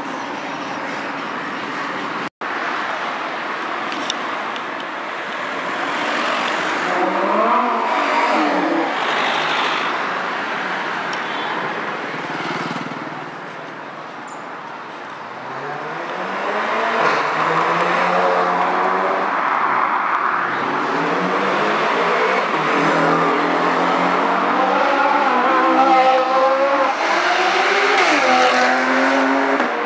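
Sports car engines accelerating hard along a street, the revs climbing in repeated rising sweeps through the gears, loudest in the second half, over steady traffic noise.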